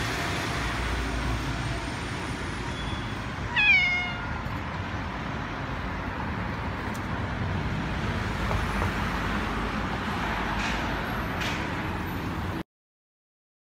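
A cat gives one short meow that falls in pitch, about three and a half seconds in, over steady outdoor background noise with a low rumble. The sound cuts off abruptly near the end.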